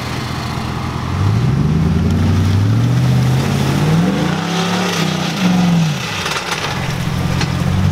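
Lifted Dodge Ram pickup's engine revving as the truck pushes through a deep mud hole, its pitch climbing from about a second in, peaking in the middle and dropping back near six seconds, over the churn and splash of tyres in mud.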